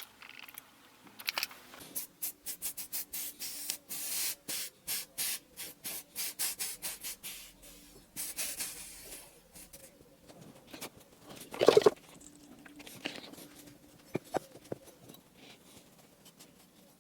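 Quick back-and-forth scrubbing strokes, several a second, of an abrasive rubbed on copper pipe to clean it, followed about twelve seconds in by a single sharp metallic knock and a few lighter taps.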